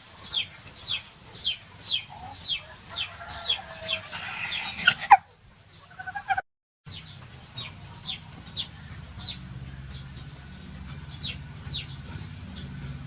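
An animal's short, shrill, downward-sliding calls repeated about twice a second, with a louder noisy scuffle-like burst about four to five seconds in; the calls go on more faintly after a brief dropout.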